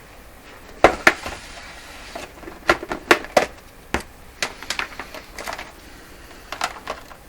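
Hard objects clacking and knocking as cords and plugs are rummaged through and handled on a workbench: about a dozen sharp, irregular clacks, the loudest pair about a second in.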